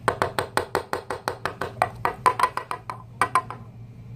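Plastic fly vial rapped against a lab benchtop in a fast run of sharp taps, about six a second, then two more after a short pause. The taps knock the fruit flies to the bottom so they can be flipped into a fresh food vial.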